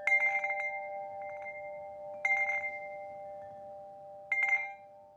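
Metal chimes struck in three clusters about two seconds apart, each cluster ringing on in clear steady tones that slowly fade.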